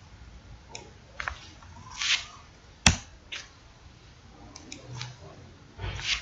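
Computer mouse clicks and keyboard keystrokes: a handful of scattered short taps, the sharpest one about three seconds in, with a couple of brief hissy sounds between them.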